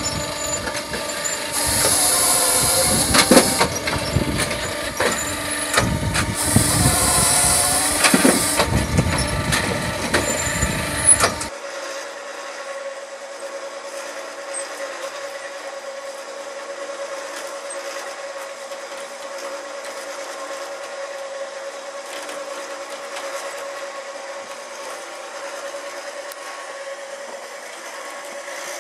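Firewood processor running, with two harsh noisy bursts of a couple of seconds each as it works a log. After a sudden change about eleven seconds in, a quieter steady motor hum with one held tone, from a homemade processor's cable winch hauling a log up its loading ramp.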